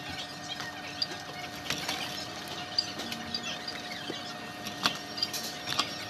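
Store background with a steady faint hum, overlaid by scattered light clicks and rattles of small packaged goods being handled and pulled from a rack.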